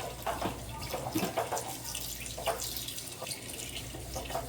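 Water running from a tap into a sink, with a few light knocks.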